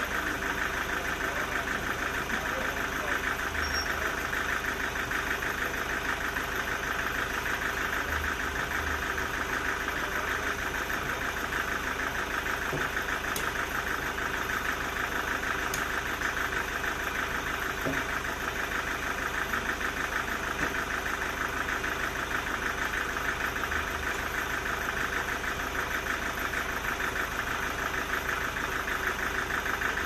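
Band sawmill machinery running steadily, a continuous engine-like drone with a strong mid-pitched hum that holds at one level.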